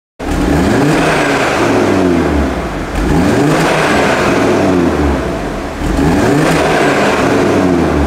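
Audi RS3 8V.2's turbocharged 2.5-litre five-cylinder engine revved three times through the stock exhaust. Each time the pitch climbs quickly, then falls back over about two seconds.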